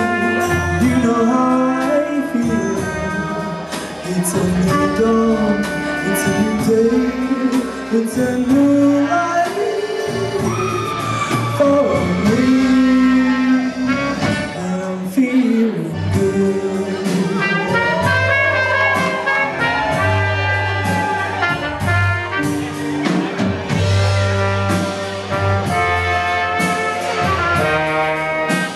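Live band music with brass horns and singing.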